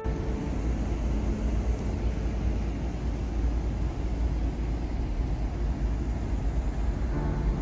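Steady low rumble of a running vehicle, even throughout with no distinct events.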